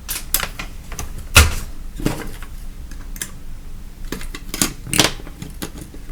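Handling noise: a scatter of sharp clicks and light knocks as a small plastic light-switch unit and its circuit board are switched off and moved about on a bench, with one louder knock about a second and a half in.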